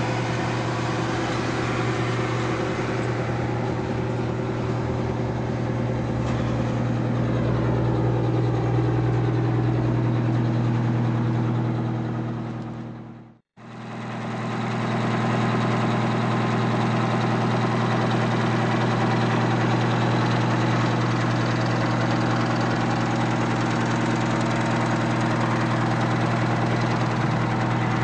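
Detroit Diesel 8V92T two-stroke turbocharged V8 diesel of an airport crash truck idling steadily. The sound fades out and back in once, about halfway through.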